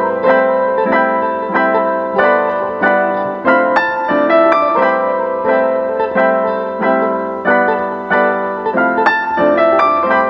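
Background music of keyboard chords struck in a steady, even rhythm, about three every two seconds, each chord fading before the next.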